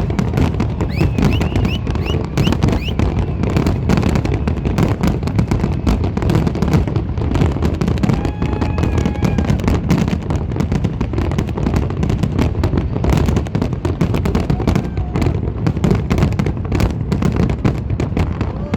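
New Year fireworks display going off in a continuous barrage, with dense rapid bangs and crackles and no let-up.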